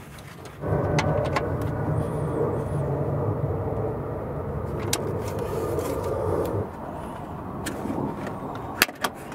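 Steady rumble of a motor vehicle running nearby, starting abruptly just after the start and cutting off sharply around two-thirds of the way through, with a few light clicks of hands working on metal parts and wiring.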